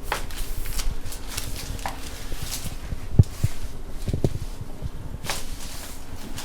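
Rustling and movement on a treatment table, with a few short, soft low thumps; the loudest comes about three seconds in.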